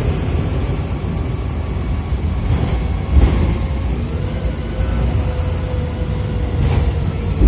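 Interior sound of a Wright Pulsar single-deck bus on a VDL SB200 chassis running: a steady low engine and body drone. Brief loud bursts come about three seconds in and again near the end.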